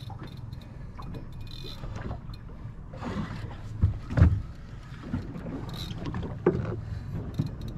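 Steady low rumble of a boat at sea, with wind and water against the hull, broken by a loud thump about four seconds in and a smaller one about two seconds later.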